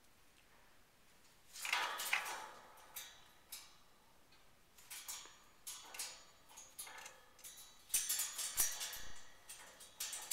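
Eclectus parrot knocking and rattling her toys about in the cage: irregular clattering knocks and rattles that start about a second and a half in and come in short clusters, busiest near the end.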